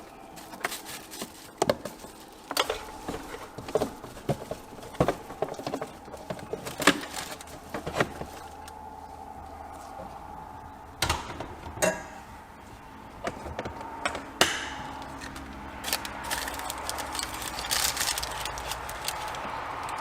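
Hands and tools working: a string of irregular clicks, knocks and light rattles, with a faint steady hum underneath.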